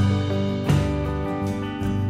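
Background music with a plucked guitar: one chord sounds at the start and another under a second later.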